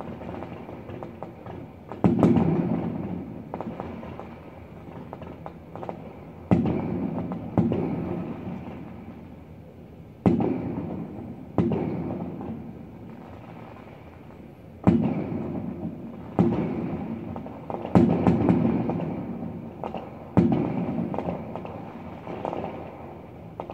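Fireworks show: about a dozen aerial shell bursts, one to three seconds apart, each a sharp boom followed by a low rolling echo that dies away over a few seconds.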